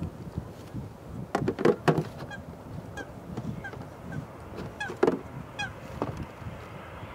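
Geese honking in a run of short calls, loudest about two seconds in and again about five seconds in, over the low rush of a KLM Embraer 190 jet coming in to land that grows near the end.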